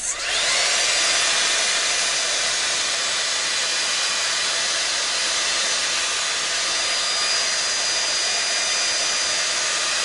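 A 5-in-1 hot air styler with its curling barrel attached, switched on and blowing. Its motor spins up with a rising whine in the first half-second, then runs steadily with a rush of air and a high, thin motor whine. It stops abruptly near the end.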